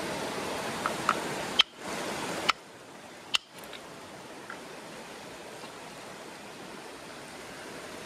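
Steady rush of river water with a handful of sharp knocks in the first three and a half seconds: a moose antler striking a chert cobble to knock off a test flake. The water noise drops quieter after about two and a half seconds.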